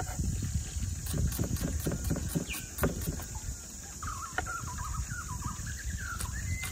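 Chef's knife slicing shallots on a wooden cutting board: quick, repeated knocks of the blade on the board, thinning out after about three seconds. A bird warbles in the background for a couple of seconds near the end.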